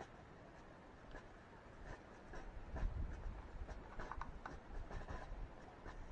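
Faint scratching and rubbing as fingers pinch and sprinkle lettuce seeds over crumbly soil, with scattered small ticks and a few soft low thumps.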